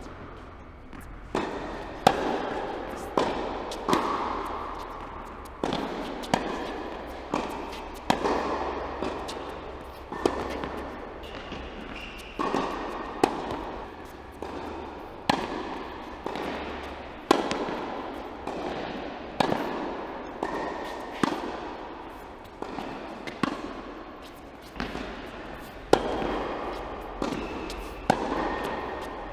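Tennis balls struck by rackets and bouncing during a rally on an indoor court, sharp pops about once a second, each echoing briefly in the large hall.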